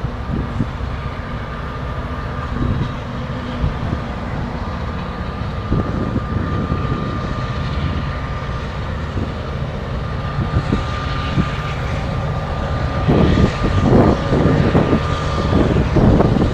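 Freight train rumbling through a rail yard, with a steady high tone held over it. Louder thumps and wind buffeting on the microphone come in over the last few seconds.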